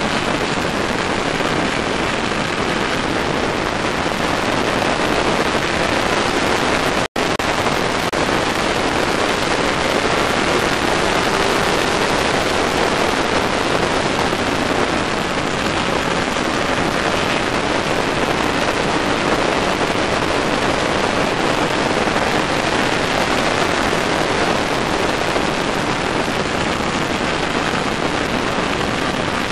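Wind rushing over the microphone of a camera mounted on a sport motorcycle at riding speed: a loud, steady hiss with the bike's engine buried underneath. The sound cuts out for an instant about seven seconds in.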